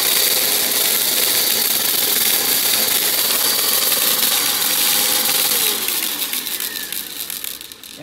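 Dirt Devil Razor Pet stick vacuum running on carpet with a steady whine. About six seconds in it is switched off, and the motor winds down with a falling pitch as it fades.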